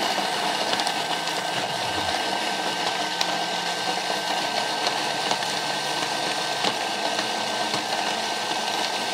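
Thermomix TM6 food processor blending at speed 6: a steady, even whirring of the blade through a thick cream mixture in its lidded steel bowl.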